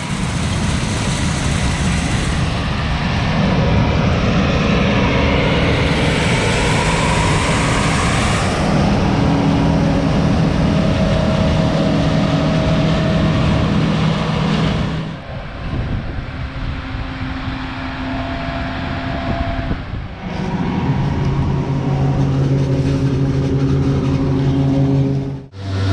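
Heavy farm machinery engines running steadily, in several shots that change abruptly about 15, 20 and 25 seconds in.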